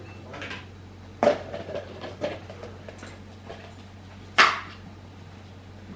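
Kitchen clatter of dishes and food containers being handled: a few sharp knocks and clacks, the loudest a little over four seconds in.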